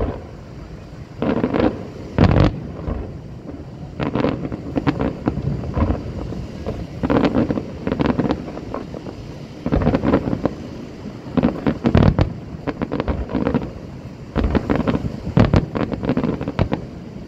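Aerial fireworks going off in a rapid run of bangs and crackles, clusters of reports every second or two, with wind buffeting the microphone.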